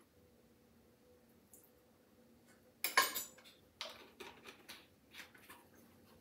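Metal measuring spoon clinking and tapping against a glass mixing bowl and a vanilla extract bottle. It is quiet for the first few seconds, then there is one sharp clink about three seconds in, followed by a string of lighter clicks.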